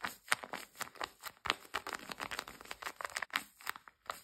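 Handmade paper squishy, a shiny taped-paper camera, being squeezed and kneaded in the hands, crunching and crinkling in many quick, irregular crackles.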